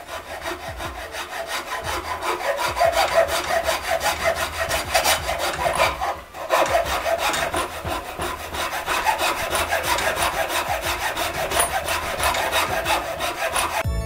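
Hacksaw cutting through a wooden block glued with epoxy onto a bolt held in a vise, in steady back-and-forth strokes with a brief pause about six seconds in.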